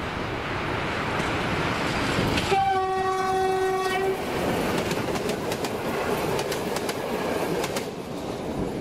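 SM42 diesel locomotive approaching and passing with its engine running, giving one steady horn blast of about a second and a half a couple of seconds in. Its passenger carriages then roll by, wheels clicking over the rail joints.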